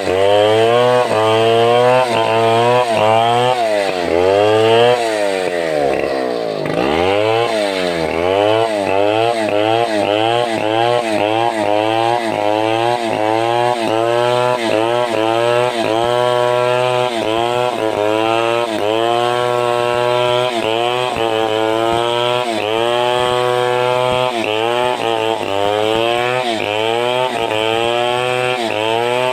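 Chainsaw cutting into a sengon log, its engine pitch dropping and recovering over and over, roughly once a second, as the chain loads in the wood, with one deeper bog about six seconds in.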